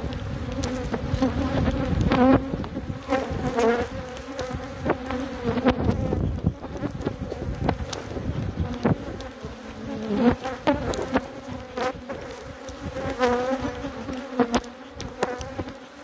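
Honey bees buzzing around an opened hive, several flying close past the microphone so their hum rises and falls in pitch, over a steady background hum of the colony. A few light clicks are mixed in.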